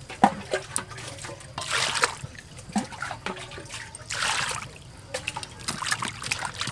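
Water poured into a metal pot of peeled corn cobs, carrots and potatoes, in two stronger pours about two seconds apart with smaller splashes between; near the end, hands slosh and rub the vegetables in the water.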